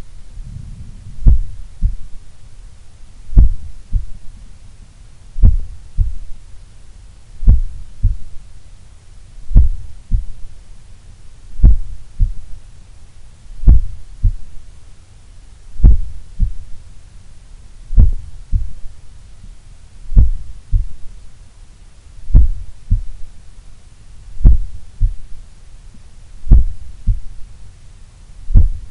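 Human heart heard through a stethoscope chest piece pressed to the chest: slow lub-dub pairs about every two seconds, each a strong first sound followed by a softer second sound about half a second later, over a faint low hum. A very low resting heart rate.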